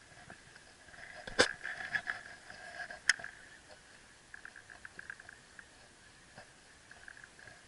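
Baitcasting reel handled close up: two sharp clicks in the first few seconds, then soft, quick clicking as the reel handle is turned.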